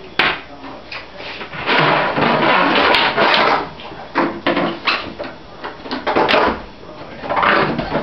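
Dishwasher drain hose being dragged out through the sink cabinet, the plastic rubbing and scraping against the cabinet in several rough spells, the longest about two seconds in.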